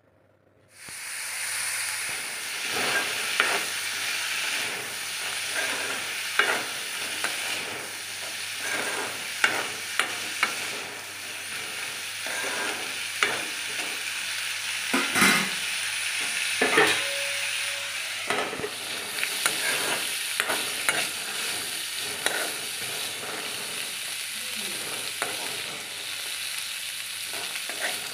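Black chickpeas and onions sizzling in oil in a kadhai, stirred with a metal spoon that clinks and scrapes against the pan again and again. The sizzle starts about a second in.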